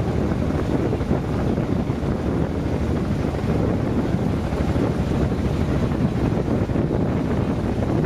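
Wind buffeting the microphone: a steady low rumble that keeps on without a break.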